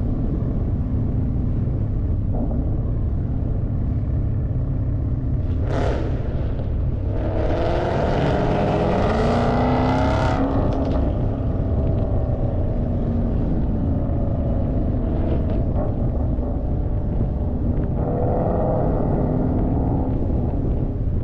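Ford Mustang V8 running with a steady low exhaust rumble, accelerating about seven seconds in with its pitch climbing for about three seconds before easing off, and pulling up in pitch again near the end. A brief rush of noise comes just before the first acceleration.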